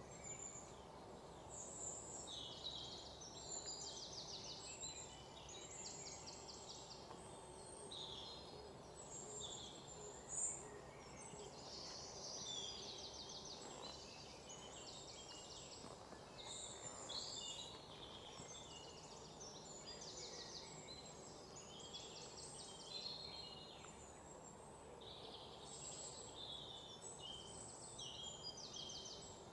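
Faint outdoor birdsong: many short chirps and quick trills, one after another. A single brief click about ten seconds in.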